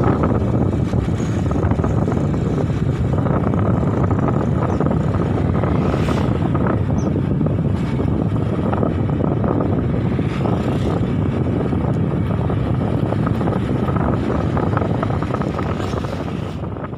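Motorcycle riding along a rough road: steady wind buffeting on the microphone over the engine and tyre noise, fading out near the end.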